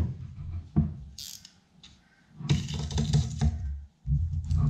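Crinkling, rustling and tearing of builder's plastic film and masking tape being pulled off a cured carbon fibre wing by hand, with a knock about a second in. The rustling comes in a longer stretch in the second half and starts again near the end.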